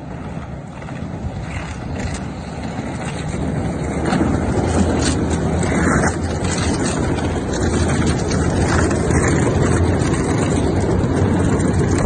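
A motor vehicle running, with a steady low engine hum under loud rushing noise. It grows louder over the first few seconds, then holds steady.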